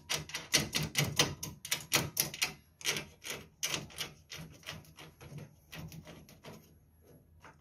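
Quick, irregular metallic clicking as a nut is screwed back onto an inverter's battery terminal stud, several clicks a second at first, then sparser and fainter after about three seconds.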